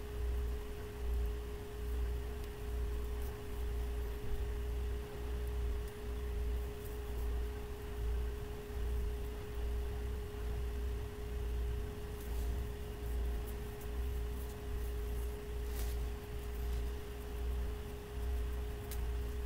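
A steady hum at one constant pitch, with a low rumble beneath it that pulses about once or twice a second.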